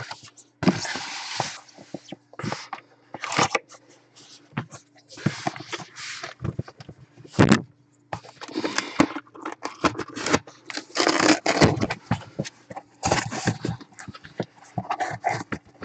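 Cardboard shipping case being handled and opened by hand: irregular scraping, crackling and rustling of the cardboard flaps and packing tape, with short knocks of the box on the table. A faint steady hum runs underneath.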